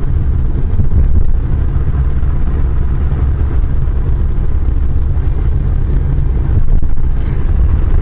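Steady low rumble of a moving car's engine and tyres on a snow-covered road, heard from inside the cabin.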